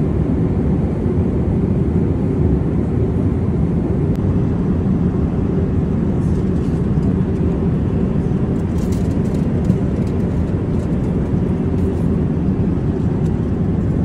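Steady low rumble of a jet airliner's cabin noise in flight, heard inside the cabin, with a few faint clicks about halfway through.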